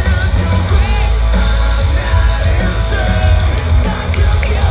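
Live rock band playing loud: a male singer's voice over electric guitars, drums and a heavy bass.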